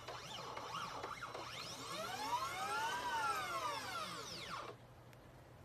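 Stepper motors of a CNC 3018 engraving machine whining as they drive the laser head: a few short pitch chirps, then one longer move whose whine rises and falls in pitch as the axis speeds up and slows down, stopping suddenly about a second before the end and leaving a faint low hum.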